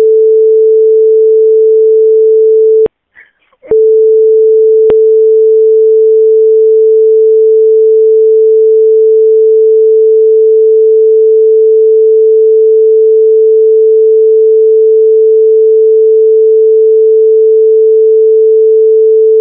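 A loud, steady single-pitch censor bleep tone, redacting the 911 caller's name and personal details. It breaks off once, briefly, about three seconds in, letting a short fragment of voice through, then carries on.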